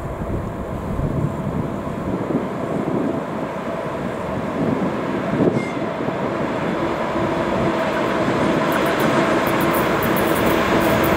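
2TE116 twin-section diesel freight locomotive running under heavy load as it approaches, its engine drone growing steadily louder.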